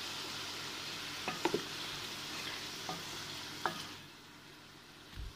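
Chicken pieces frying in hot ghee in a metal karahi, a steady sizzle, with a ladle stirring and clinking against the pot a few times. The sizzle drops sharply about four seconds in.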